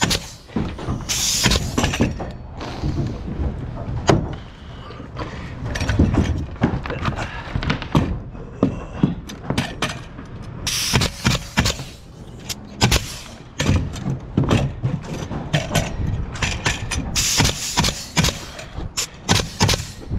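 Pneumatic coil nailer shooting nails through OSB roof sheathing into the rafters, in quick runs of sharp shots with a hiss of air, about a second in, again around eleven seconds and near the end. Scattered knocks on the sheathing come between the runs.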